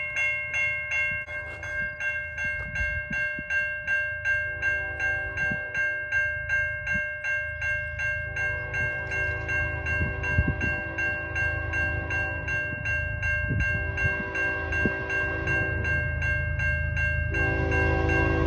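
A level-crossing bell rings steadily, about two strikes a second, while a long CN freight train rolls through the crossing with a low rumble and clicking wheels. The rumble grows louder near the end.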